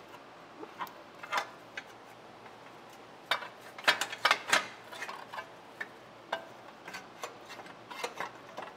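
Light, irregular metallic clicks and clinks of hand tools and parts under a car while a motor mount is worked loose from a lowered subframe. The clicks are denser about three to four and a half seconds in.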